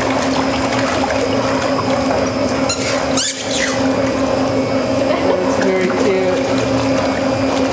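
Aqua pacer underwater treadmill running with a steady hum, the water churning and splashing as the dogs wade against the moving belt.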